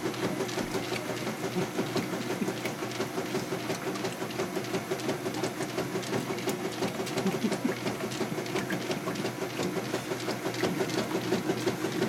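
Top-loading washing machine agitating in its wash cycle: a steady motor hum under rhythmic churning and sloshing of water and clothes.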